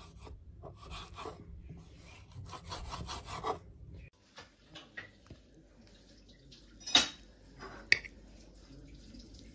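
Knife sawing through raw bacon on a wooden cutting board, a quick run of rasping strokes. After a break, two sharp clinks about a second apart from a fork on a ceramic plate of spaghetti.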